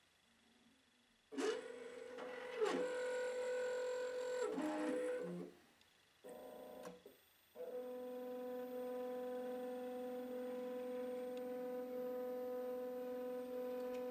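TESS lens-frame tracer running its trace cycle on the calibration gauge: the motors driving the stylus give a steady pitched whine. It starts about a second in, stops for about two seconds around the middle with one short blip, then runs again, tracing one eye opening and then the other.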